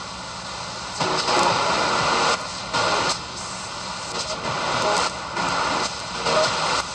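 Shortwave static and hiss from a Yewrich YU-RU8 portable DSP receiver's speaker as its tuning knob is turned across the 19 m band. The noise jumps louder and quieter in abrupt steps as the tuner moves between channels.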